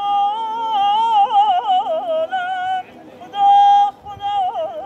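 A man singing Persian classical āvāz solo, holding high notes and breaking into quick yodel-like tahrir trills in the middle and again near the end, with a short breath between phrases.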